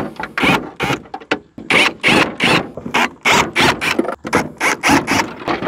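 Ridgid cordless drill/driver backing out the screws of an electrical enclosure cover, running in a quick series of short bursts, about four a second.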